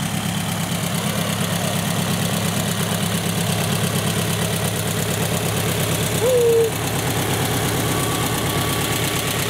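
Kolb Kolbra ultralight's engine and propeller idling with a steady drone as the plane taxis on the ground after landing.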